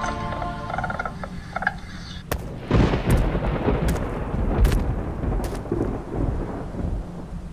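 Music that stops within the first two seconds, then a deep rumble with several sharp cracks that starts nearly three seconds in.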